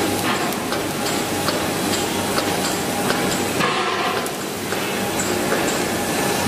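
Plastic granulator line for PP/PE hard material running: a loud, steady machine noise with irregular sharp clicks.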